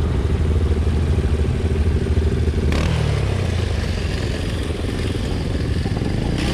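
Small ATV and go-kart engines idling steadily close by. The sound changes abruptly about two and a half seconds in, where a cut switches to another idling engine.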